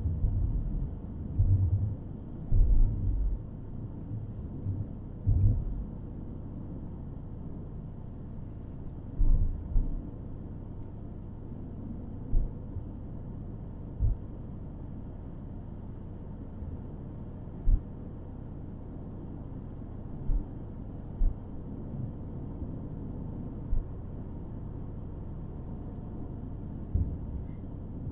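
Car driving along: steady low road and engine rumble, with irregular short low thuds on top, several close together in the first few seconds and then single ones every few seconds.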